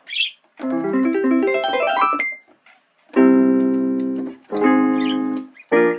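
Medeli MC66 electronic keyboard played through its own built-in speakers. It plays a quick run of single notes, then two held chords that fade away, then short repeated chords near the end.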